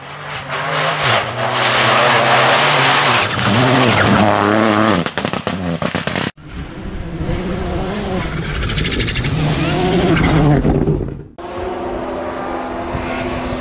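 Rally cars at full speed in quick cuts: first a car passing flat out on a loose dirt road, engine revving up and down through the gears over the hiss and rattle of spraying gravel. About six seconds in, a cut to another car revving hard. About eleven seconds in, a cut to a car approaching on tarmac with a steadier engine note.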